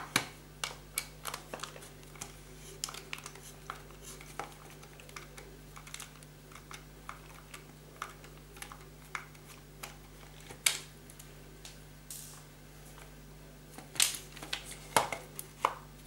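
Small screwdriver working the screws out of a dishwasher wash pump's plastic motor housing: a run of small clicks and ticks of metal on plastic, with a few sharper clicks near the end.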